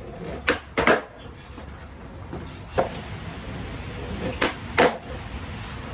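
Skateboard tricks on pavement: the wooden tail snapping down for the pop and the board landing about half a second later, twice as clear pairs with a single knock between them, over a steady low rumble of wind on the microphone.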